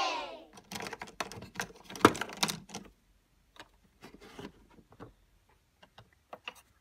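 Plastic clicks and knocks from a toy cash register being handled: keys pressed and the coin drawer worked over plastic coins. The clicks are thick for the first three seconds, the loudest about two seconds in, then sparser and fainter.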